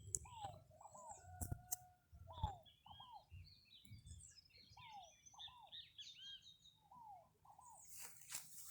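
Several wild birds singing faintly: one repeats pairs of arched whistled notes every second or two while smaller birds chirp higher up, with a few sharp clicks.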